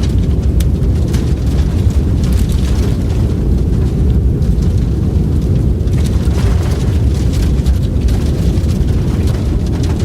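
Strong, steady rumbling wind of a blizzard, deep and continuous, with faint scattered ticks above it.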